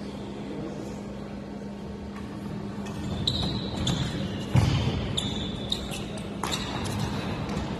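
Badminton rally on an indoor court: from about three seconds in, rackets strike the shuttlecock in sharp cracks, the loudest about halfway through, with sneakers squeaking on the court floor between shots, over a steady low hum.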